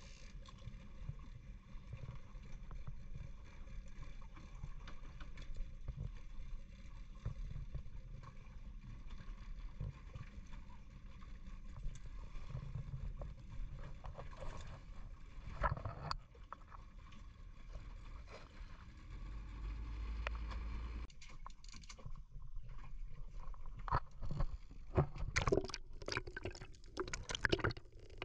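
Small open fishing boat at sea: a steady low rumble of wind and water against the hull with irregular knocks. Later this gives way to splashing and gurgling water that grows louder toward the end.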